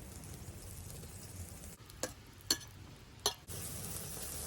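Wood campfire under a pot of water: a few sharp crackling pops about two, two and a half and three and a quarter seconds in, then a steady sizzling hiss from about three and a half seconds in.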